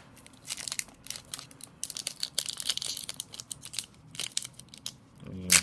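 Wrapper of an Upper Deck MVP hockey card pack being torn open and handled, an irregular run of crinkles and crackles.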